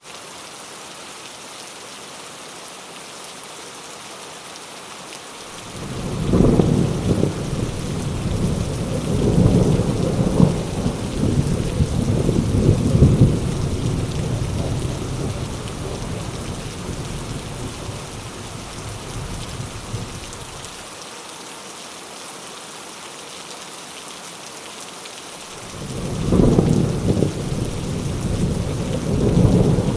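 Heavy rain falling steadily, with two long rolls of thunder: the first builds about six seconds in and rumbles on for some fifteen seconds before dying away, the second breaks near the end.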